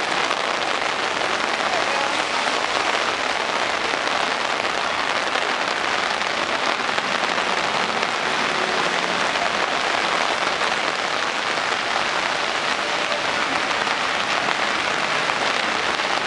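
Very heavy rain pouring onto paved pavement and road: a loud, steady, dense hiss.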